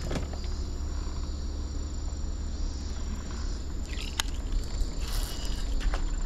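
Insects chirring in a steady high drone over a low steady rumble, with a few sharp clicks, one right at the start and one about four seconds in.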